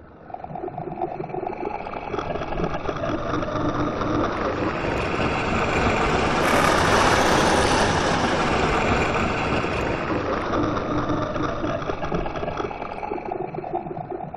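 Designed digital sci-fi swoosh: one long pass-by that builds to a peak about halfway through and fades away, a grainy rush with several steady tones running through it.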